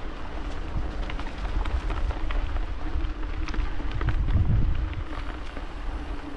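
Bicycle tyres rolling over dry fallen leaves and twigs on a forest trail: a continuous crackle with scattered sharp snaps, over a low rumble that swells briefly about four seconds in.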